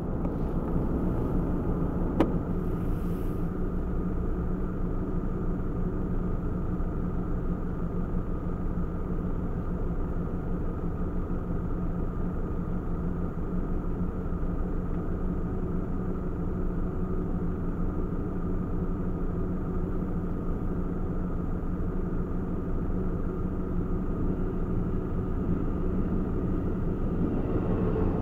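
Steady low rumble of road vehicle engines, with a single sharp click about two seconds in.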